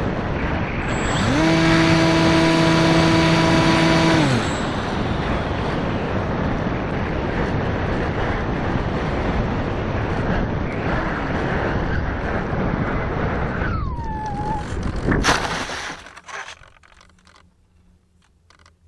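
Airflow rushing over an Easystar 2 model plane's onboard microphone as it glides in. Its electric motor and pusher propeller whine for about three seconds near the start, then spin down. About fifteen seconds in the plane hits the grass with a sharp thump, and after it a few faint rustles and clicks as it comes to rest.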